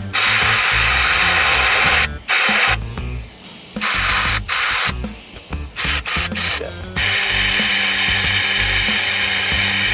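Compressed air hissing from an air nozzle, blown into the clogged primer nipple and slow-speed passages of a Johnson 25 hp outboard carburetor to clear a blockage. It comes in blasts: a long one at the start, a run of short bursts, then another long one near the end. Background music plays underneath.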